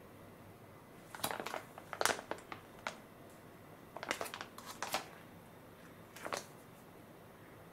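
Ajinomoto Steam Me plastic cooking pouch crinkling as it is handled and turned over, in a string of short rustles.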